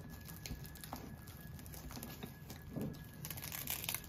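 Faint rustling and light taps as hands press a fire sleeve's velcro seam shut around a metal hose, with a louder scratchy rustle near the end.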